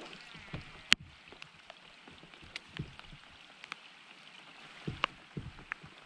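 Steady hiss of rain falling on the lake surface and a kayak, with scattered sharp ticks, the loudest about a second in, and a few dull knocks.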